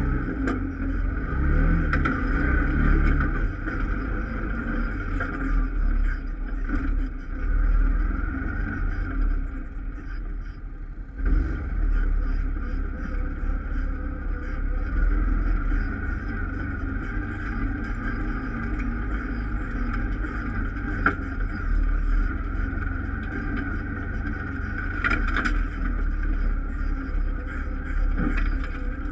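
ATV engine running as the quad is ridden over a bumpy trail, the level rising and falling with the throttle, with a few sharp knocks from the rough ground.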